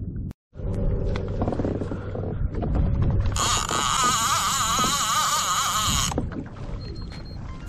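Fishing reel being cranked quickly, its gears giving a whine that wavers in pitch. The whine starts abruptly about three seconds in and cuts off about three seconds later. Before it there is a low rumble of wind and handling noise.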